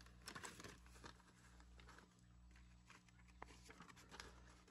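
Near silence with faint rustling and light clicks of paper banknotes and a binder cash envelope being handled, over a low steady hum.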